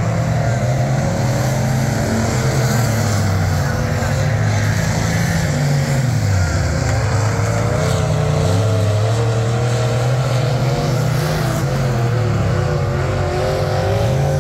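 Pure stock dirt-track race cars' engines running at speed around the oval. The pitch dips about six seconds in, then climbs again.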